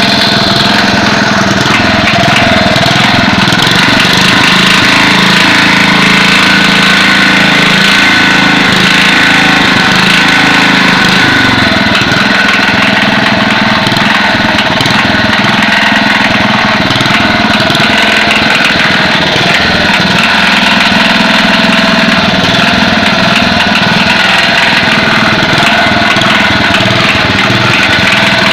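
Small generator engine of a restored Deaheung DLG 3500 running steadily and loud, cutting in suddenly at the start.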